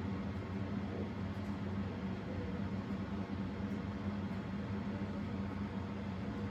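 CEC Spinner ceiling fan running at its single speed: a steady low motor hum over an even rush of noise.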